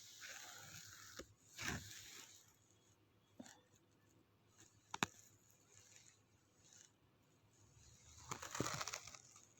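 Faint scratching strokes of a pen drawing a diagram, a few short strokes early on, a sharp click about five seconds in, and a longer stroke near the end.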